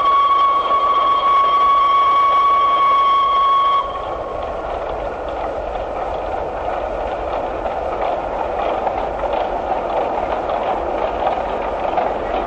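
Sharp Stewart 2-4-0 steam locomotive's whistle held on one steady note, cutting off suddenly about four seconds in, then the noise of the train running along the track.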